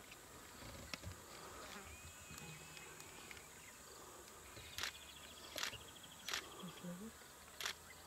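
Faint steady insect chirring in the background, with a few sharp clicks in the second half.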